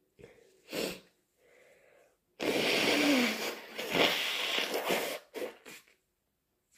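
A person sneezing. A short sharp breath comes about a second in, then a loud, drawn-out sneeze with a falling voiced cry and a second burst, followed by two quick short breaths through the nose. These are induced allergy sneezes.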